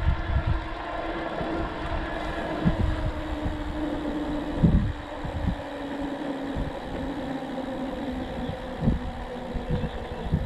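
Wind buffeting a microphone carried on a moving bicycle, in irregular low gusts over a steady hum.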